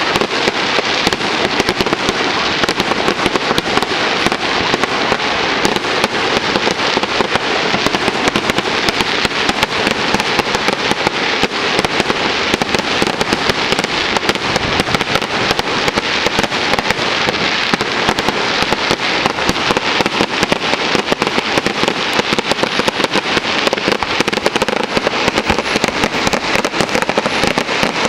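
Aerial fireworks shells going off in a dense, unbroken barrage of bangs and crackling pops.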